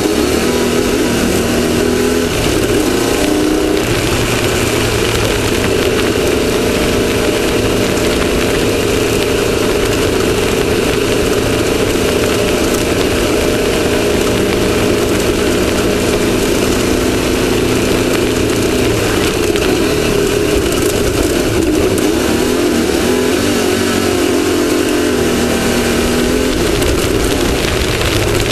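Off-road race vehicle's engine running hard, its pitch shifting a few times with throttle and speed, heard onboard over a steady rush of wind and terrain noise.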